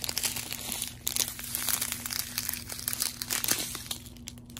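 Small plastic bags of round resin diamond-painting drills crinkling as they are handled and shuffled: a dense run of crackles that eases off near the end.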